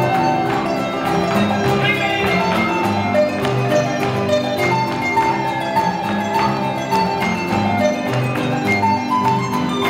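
A live son jarocho played on jarocho harp, strummed guitars and marimba, with a steady, busy strumming rhythm.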